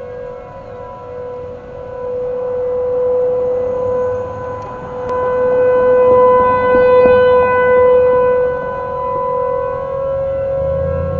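Several outdoor warning sirens, ASC T-128s and a Federal Signal Thunderbolt 1000AT among them, sounding the steady Alert tone together. Their overlapping pitches swell and fade every few seconds as the rotating sirens sweep past, loudest about two thirds of the way in.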